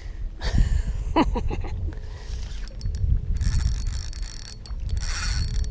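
Spinning fishing reel being wound, its gears and mechanism ticking, over a constant rumble of wind and handling on the microphone.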